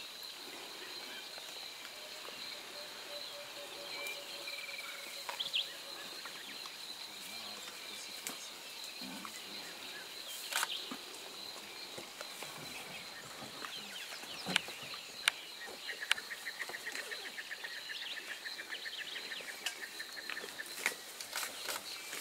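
African wild dogs feeding on a carcass, with sharp cracks and tearing sounds now and then, the loudest a little past the middle. Beneath them run a steady high-pitched insect drone and scattered chirping calls, including a rapid chattering series near the end.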